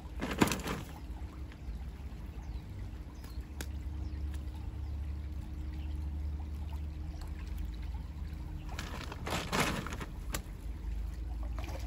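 Shallow stream running over rocks. Two short louder noises, about half a second in and about two seconds before the end, come from the wet cast net being handled in the water.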